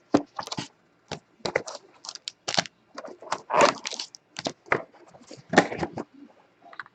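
Trading-card packaging being opened and handled: a string of short, irregular crackles and clicks.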